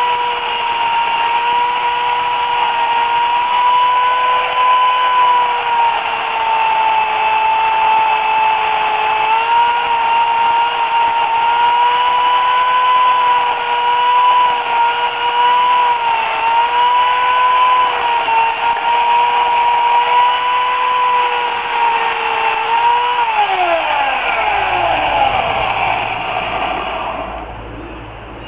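Remington Limb N Trim RM1415A electric chainsaw (8-amp motor) running at full speed with a steady whine, its pitch sagging slightly now and then as the chain is loaded in the cut through the tree's base. After about 23 seconds it is let off and winds down with a falling pitch until it stops.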